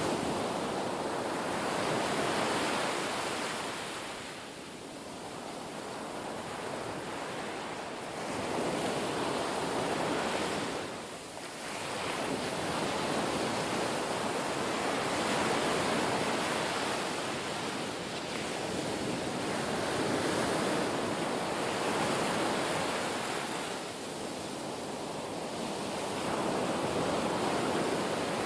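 Ocean surf: a steady rushing of breaking waves that swells and fades in long slow surges.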